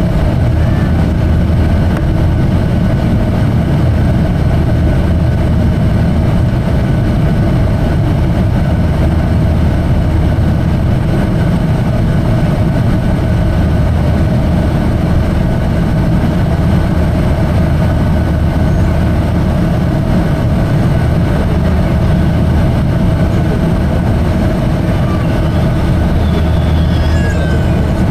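Steady drone of an airliner's jet engines and rushing air, heard inside the passenger cabin.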